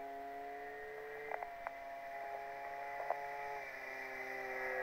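Electric motor and propeller of an FMS Cessna 182 XL radio-controlled model plane in flight: a faint steady whine that drops slightly in pitch about three and a half seconds in. A few short clicks sound about a second and a half in and again near three seconds.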